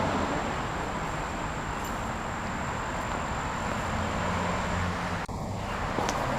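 Steady low rumble and hiss of outdoor background noise, with a brief click about five seconds in.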